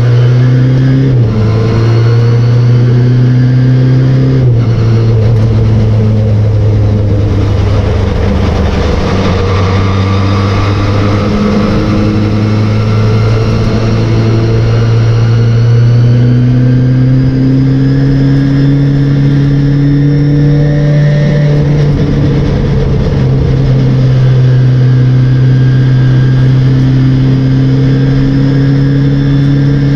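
Race car engine heard from on board, running hard throughout. Its pitch jumps up and down several times early on as the car shifts gear, then climbs slowly over long stretches as it accelerates.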